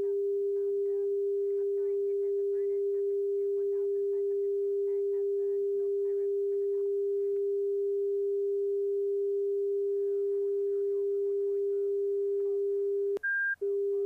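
Steady, pure mid-pitched tone from a 3D-audio slip-skid indicator, panned to the right to follow the ball as the aircraft is held in a slip with left rudder and right aileron. Near the end the tone cuts out briefly with a click and a short higher beep, then resumes.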